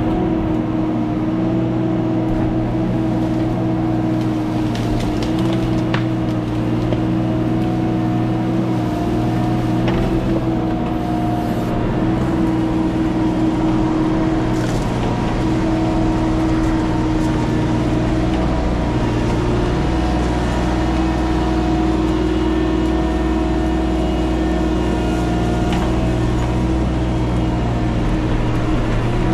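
An engine running steadily at a nearly constant speed, loud and even, with only small shifts in pitch.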